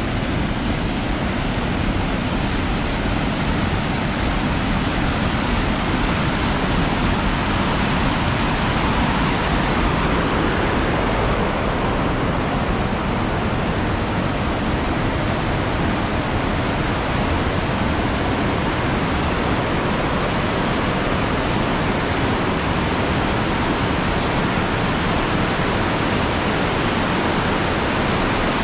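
Fast river water pouring over low concrete weirs in a concrete channel: a steady, loud rush of white water.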